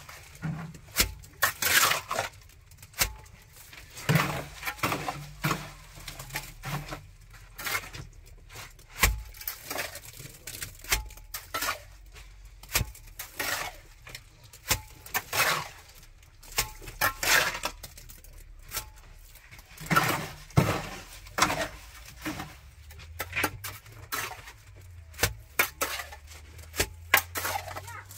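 Irregular clinks, knocks and short scrapes of hand tools striking hard material, as in masonry or plumbing work, a few strikes a second with uneven gaps.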